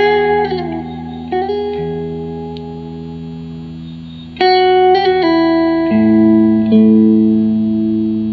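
Electric guitar played clean through a Fender Blues Junior IV tube combo amp. Chords are struck and left to ring out and fade, a new chord comes in about four seconds in, and it changes twice more after that.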